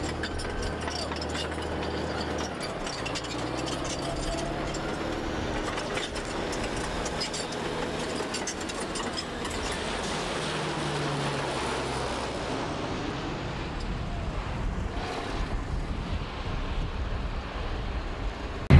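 Four-engine turboprop air tankers flying low overhead: a steady drone of engines and propellers with slowly shifting low tones.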